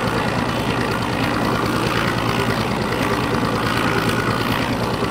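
Motorboat engine idling steadily, heard from on board, with an even low hum and pulse.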